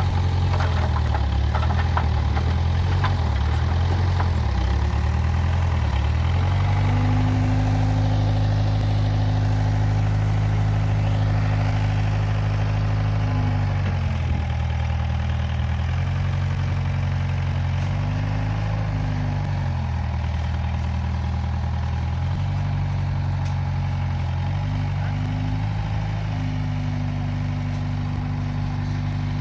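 Case 580G backhoe loader's engine running under a working load, its speed stepping up and down repeatedly: it runs lower and unsteady at first, rises to higher revs about a quarter of the way in, drops back around halfway, and climbs again for the last part.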